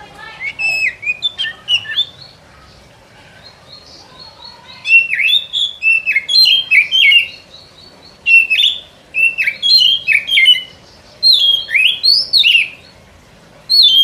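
Oriental magpie-robin (kacer) song, a recording used as a lure call: loud phrases of rich, sweeping whistled notes in bursts of one to two seconds. A short phrase comes first, then about three seconds of quiet, then several phrases in quick succession.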